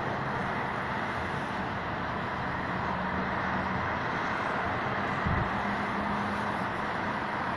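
Steady hum of city road traffic, cars passing on the street below, with a brief low thump about five seconds in.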